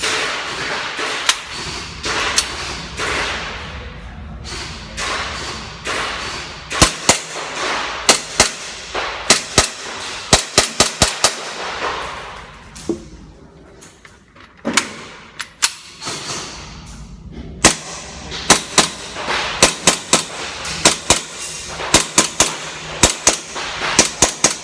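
CO2 gas blowback airsoft pistol (KJ Works KP-09) firing: a few scattered shots at first, then quick strings of sharp cracks from about seven seconds in, a pause, and more rapid strings through the second half.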